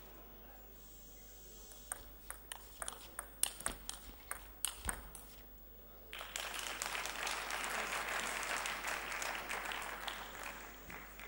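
Table tennis rally: the celluloid ball clicks sharply and irregularly off the bats and the table for about three seconds. About a second after the rally ends, the crowd breaks into applause for the point, which lasts about five seconds and is the loudest part.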